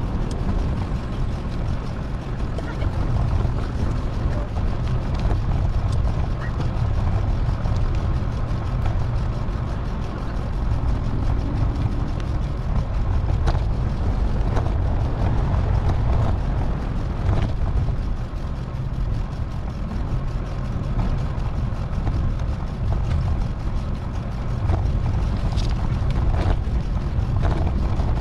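Steady low wind rumble buffeting the microphone, mixed with road noise, while riding a bicycle.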